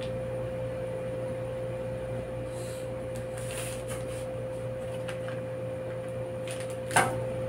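Marker pen drawing short strokes on pattern paper along a metal ruler, with faint scratches over a steady background hum, and one sharp knock near the end.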